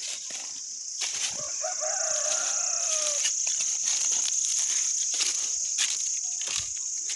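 Footsteps crunching through dry fallen leaves over a steady, high-pitched insect drone. About a second and a half in, a long call with a falling end sounds for about two seconds.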